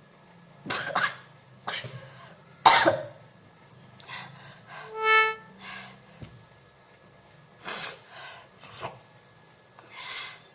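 A woman coughing in a run of short, separate coughs after inhaling chilli powder, the loudest a little under three seconds in. Midway there is one brief high-pitched squeal.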